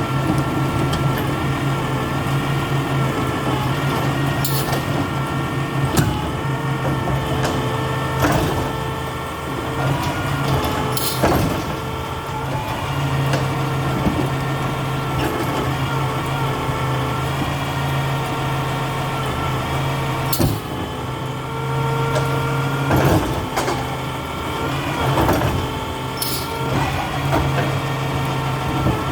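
Labrie Expert 2000 recycling truck running with a steady engine drone and held tones, broken every few seconds by sharp knocks and clanks.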